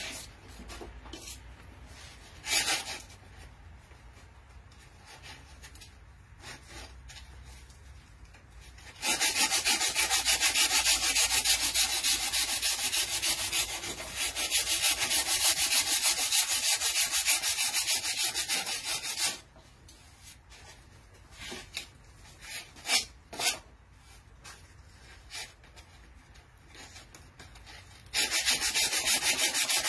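Hand sanding of a wooden board with a sanding block: scattered short strokes at first, then about nine seconds in a long spell of fast, steady back-and-forth strokes. Another spell of sparse single strokes follows, and the fast sanding starts again near the end.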